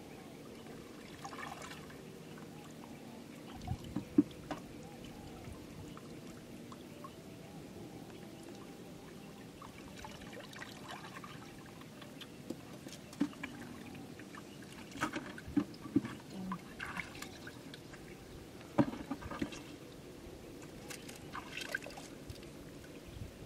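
Shallow river water sloshing and trickling as a person wades through it and reaches into it by hand, with occasional short splashes.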